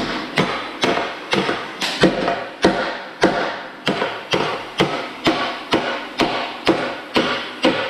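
Hand hammer pounding a part on a steel shaft held in a vise, about two sharp, ringing blows a second, to drive off a part that is probably rusted onto the shaft's keyway.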